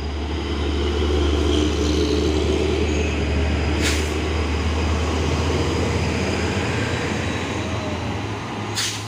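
Heavy diesel trucks running close by: a steady deep engine rumble that drops and then shifts to a slightly higher note near the end. Two short sharp hisses cut through it, about five seconds apart.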